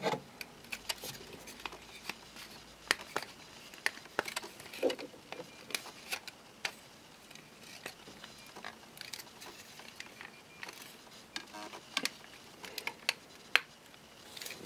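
Hard plastic parts of a Transformers Jetfire action figure clicking and knocking as they are folded and tabbed together during its change into jet mode, in scattered irregular clicks.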